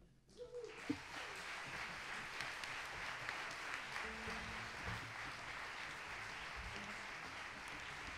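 Audience applauding steadily, starting about a second in.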